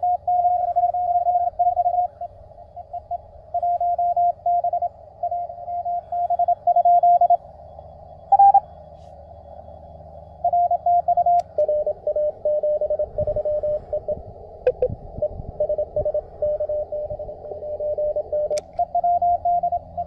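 Morse code (CW) signals received on a QRP Labs QMX transceiver: on-off keyed tones around the same pitch over a narrow band of filtered receiver hiss. From about halfway in, a second station at a slightly lower pitch keys alongside the first.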